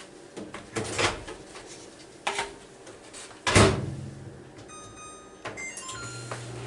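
LG Smart Inverter microwave oven being loaded and started: a few knocks and one loud thump as the door shuts, a string of short keypad beeps, then the oven starts running with a steady low hum near the end.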